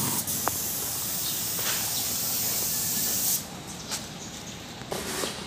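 Compressed-air paint spray gun spraying onto a forklift body, a steady hiss that cuts off abruptly a little over three seconds in as the trigger is released.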